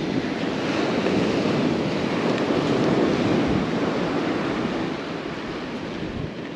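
Strong onshore wind buffeting the microphone over the wash of surf breaking on the beach, swelling about three seconds in and easing off near the end.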